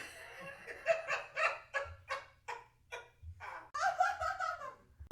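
Laughter sound effects: a voice laughing in a string of short, quick bursts, then a longer laugh near the end.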